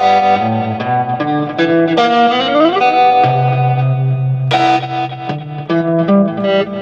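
Electric guitar playing an instrumental passage of chords and single notes, with a note sliding upward about two seconds in and a sharply picked note about four and a half seconds in.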